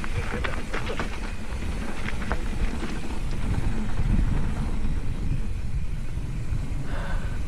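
Low, uneven rumble of wind on the microphone, with a few sharp clicks and rattles in the first couple of seconds.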